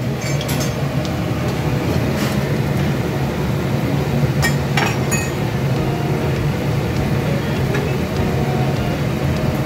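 Bread pakoras deep-frying in oil in a steel kadhai, with a slotted steel spatula clinking against the pan a few times in the first five seconds, over a steady low hum.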